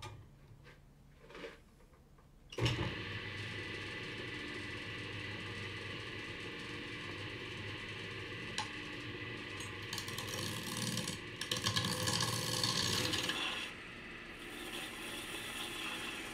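Wood lathe starting up about two and a half seconds in and running with a steady hum, after a few small clicks. From about ten seconds in, a turning gouge cuts into the spinning wood with a louder, uneven hiss, easing off about three seconds later.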